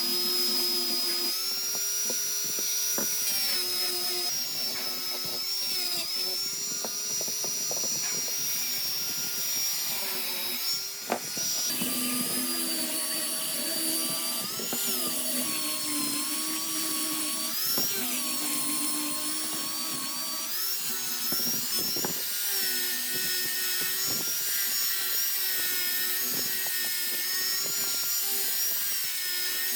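Electric power tool running on wood, a steady motor whine whose pitch dips and recovers every few seconds as it is pressed into the work, with a sharp click about eleven seconds in.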